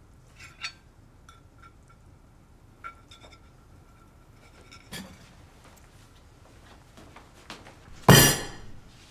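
Small light clinks of glass and objects on a wooden table, scattered over several seconds, then a sudden loud impact about eight seconds in that dies away over about half a second.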